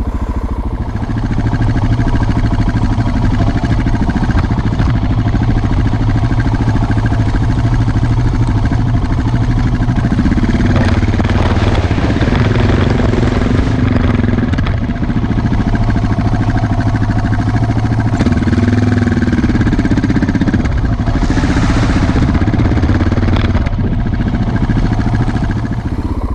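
Suzuki DR650's single-cylinder four-stroke engine running as the bike is ridden, its revs rising and falling a few times as the throttle opens and closes.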